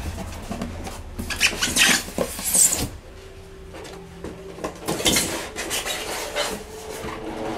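Polystyrene foam packing insert being pulled out of a cardboard box, squeaking and scraping against the box sides in a couple of bursts, the loudest about a second and a half in and another about five seconds in.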